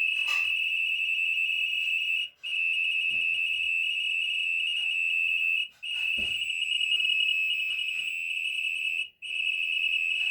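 An LG washing machine's control panel beeper sounds one steady, high-pitched electronic tone. The tone is held for about three and a half seconds at a time and cuts out briefly three times, after a button has been held down on the panel.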